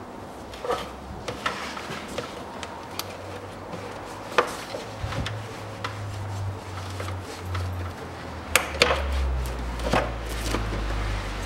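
Scattered clicks, taps and knocks of hand work in a car's engine bay as a hose is fitted back in place, with a few sharper knocks about four and nine seconds in. A low rumble sets in about halfway and grows stronger near the end.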